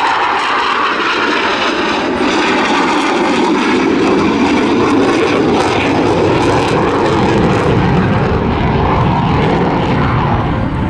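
Loud jet noise from a Eurofighter Typhoon FGR4's twin EJ200 turbofans during a display pass. The pitch falls over the first second or two, then a deeper rumble builds and holds.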